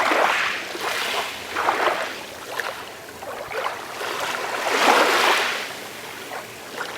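Calm sea waves washing gently onto a shore, each wash swelling and fading into a fizzing hiss every second or two. The loudest wash comes about five seconds in.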